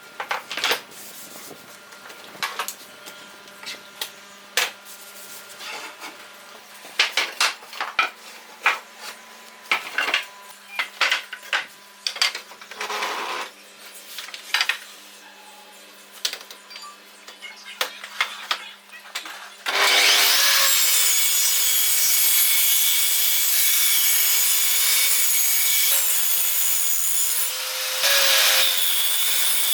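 Workshop hand work: irregular knocks and clicks for the first twenty seconds or so. Then a power tool starts up with a short rising whine and runs steadily and loudly with a high whine.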